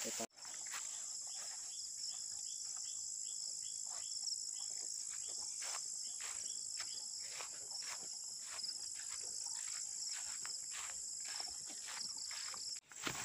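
Insects, crickets or similar, trilling steadily at a high pitch, with regular footsteps swishing through grass at about two to three steps a second.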